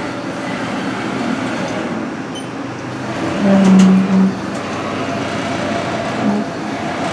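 Haas VF-3 vertical machining center running through its axis moves: a steady mechanical hum with a pitched whine of about a second around the middle and a shorter one near the end as the axes traverse.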